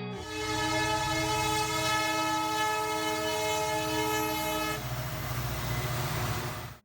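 Train horn sounding one long, steady chord for about five seconds over the low rumble of a moving train. The rumble carries on alone after the horn stops, then cuts off suddenly.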